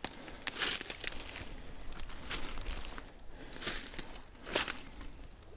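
Footsteps crunching and rustling through dry forest leaf litter, a few uneven steps.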